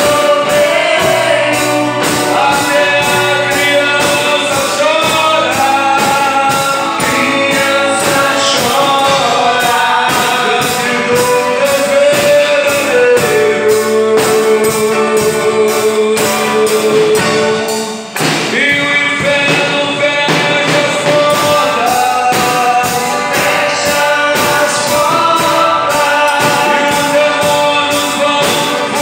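A man singing a gospel hymn into a microphone over amplified accompaniment with a steady beat, with a short break about two-thirds of the way through.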